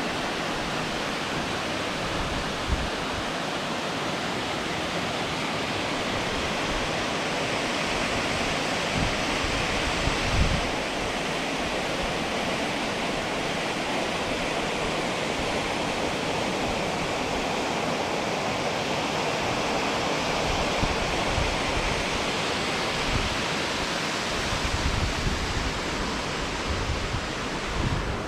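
Steady rushing of falling water from a waterfall. Scattered low thumps on the microphone come and go.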